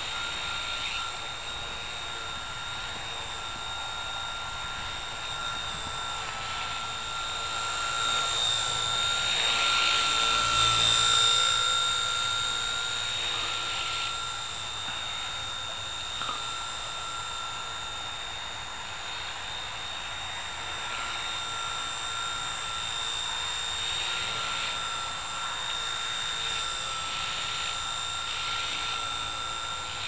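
Blade mCP X micro RC helicopter hovering: a steady high-pitched whine from its electric motors and spinning rotors. The pitch wavers slightly throughout, and the sound swells louder about ten seconds in.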